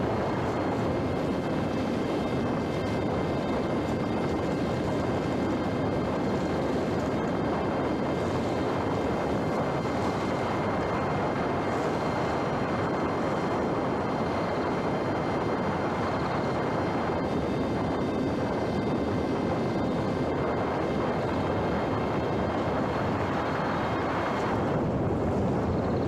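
Electric motor and propeller of a homemade RC plane (a 60%-scale FT Explorer) running steadily in flight: a steady high whine over a dense rush of air noise.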